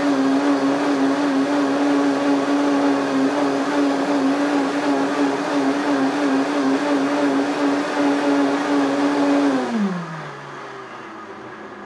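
Vitamix blender running at full speed, blending a green fruit-and-vegetable juice with a loud, steady whir. About ten seconds in the motor winds down, its pitch falling as it stops.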